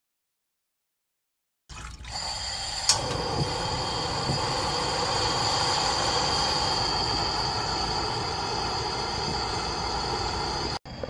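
Portable canister gas camping stove burner running with a loud, steady hiss and a thin high whine. There is one sharp click about three seconds in. The sound starts abruptly about two seconds in and cuts off just before the end.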